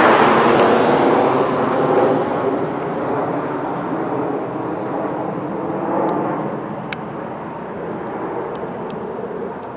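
Airplane flying low nearby, its engine noise at its loudest at the start and slowly fading away.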